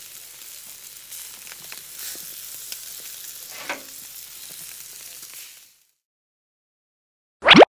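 Meat skewers sizzling and crackling over a flaming grill, fading out about five and a half seconds in. After a short silence, a quick rising tone sounds near the end.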